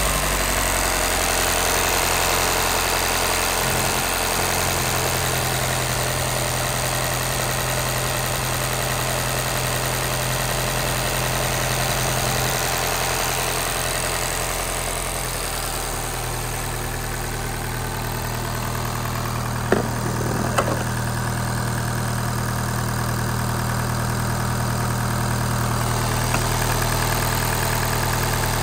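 Volkswagen Amarok's 2-litre four-cylinder turbo diesel idling steadily just after start-up, heard close in the open engine bay. Two short clicks come about two-thirds of the way through.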